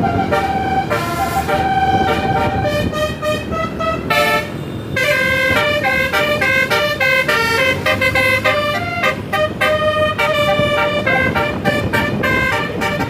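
Bus 'basuri' telolet horn playing a melody: a quick run of held horn notes stepping up and down in pitch, some sounding together as chords, over a low rumble.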